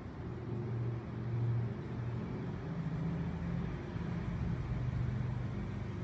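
A low motor hum that shifts up and down in pitch a few times.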